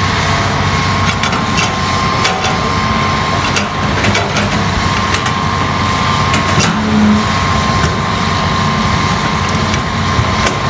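Hitachi hydraulic excavator's diesel engine running steadily as it digs, with a high whine that comes and goes and scattered sharp clicks and knocks.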